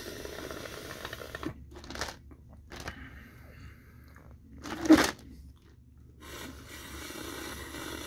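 Slurping the last of a lemonade from a plastic cup in two long pulls, with a few sharp clicks between them and one loud sharp noise about five seconds in.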